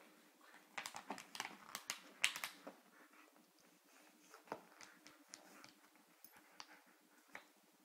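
Young husky playing: quick clicks and scuffling noises, a busy flurry in the first three seconds, then scattered single clicks.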